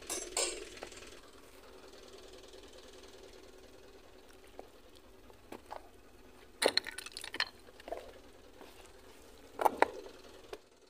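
Sharp clicks, clinks and clatters of hard things knocking against rock, in short bursts: one at the start, a bigger cluster about two-thirds in and another near the end, with faint hiss between.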